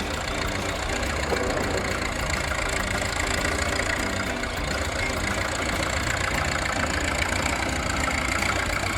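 Construction-vehicle engine running steadily: a low rumble with a dense rattle.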